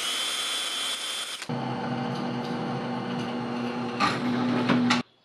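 A handheld power drill whines at speed as its bit drills into a steel plate. About one and a half seconds in, this gives way to a drill press motor running with a steady hum while its bit cuts into the plate, louder about four seconds in. It stops abruptly just before the end.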